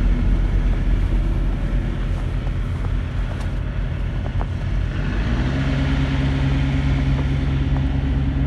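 Semi truck's diesel engine running at idle, its pitch stepping up to a higher, steady engine speed about five seconds in.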